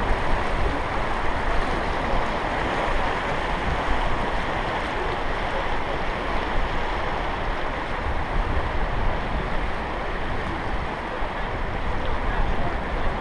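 River water rushing steadily, with a low rumble underneath.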